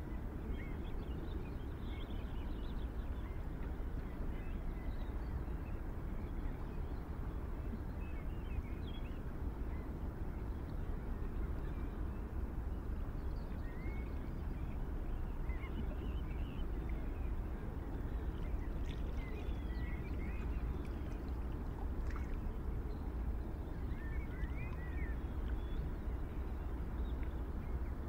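Steady low outdoor rumble with faint, scattered bird chirps coming and going.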